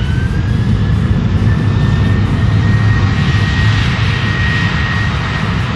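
ANA Boeing 737-800 jet engines running on the runway: a loud low rumble with a fan whine that rises in pitch, then holds steady.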